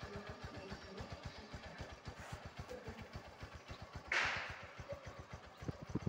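Honda TMX Supremo's single-cylinder four-stroke engine idling through its stock muffler, an engine that has gone four years without a tune-up. It gives a steady, rapid putter of exhaust pulses. A brief hiss comes about four seconds in, and the pulses grow louder near the end.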